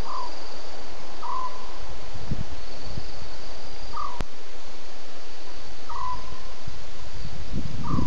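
A night bird gives a short, slightly falling call five times at uneven intervals, over a steady hiss with a faint high insect trill. Two brief low rumbles come through, one near the middle and one at the end.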